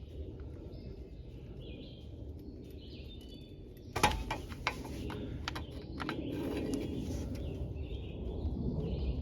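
A sharp metal clank about four seconds in, followed by a few lighter clicks, as a screwdriver levers the brake caliper to push its piston back. Birds chirp faintly in the background.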